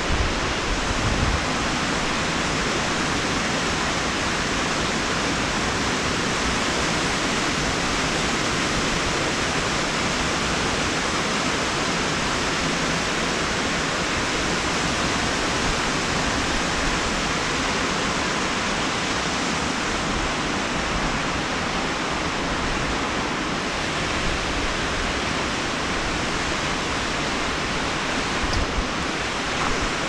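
Steady rush of a waterfall cascading over rocks, an even hiss of falling water, with a few low thumps near the start and near the end.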